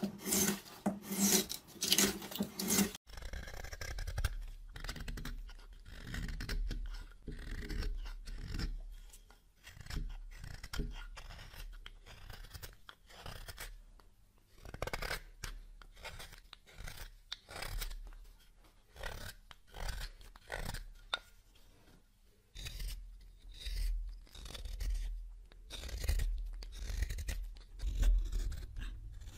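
A hand gouge scraping through wood in quick, even strokes about twice a second, paring long shavings, then after a sudden cut a small knife whittling a wooden stick in short shaving cuts.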